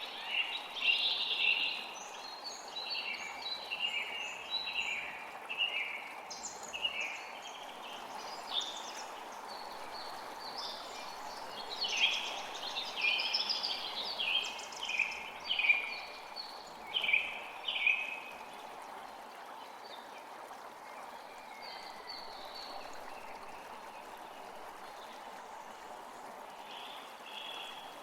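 A forest creek flowing steadily, with songbirds singing short chirping phrases over it; the birdsong is busy for most of the first two-thirds and thins out to an occasional call near the end.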